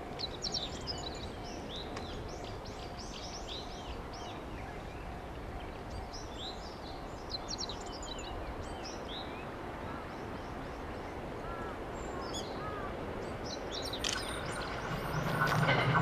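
Small birds chirping and calling repeatedly over steady outdoor background noise. Near the end an approaching train is heard, its rumble growing steadily louder.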